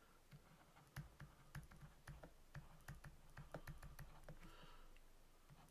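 Faint, irregular clicks and taps of a stylus on a pen tablet during handwriting.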